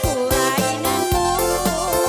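Amplified live band music with a quick steady drum beat, and a woman singing a wavering melody into a microphone over it.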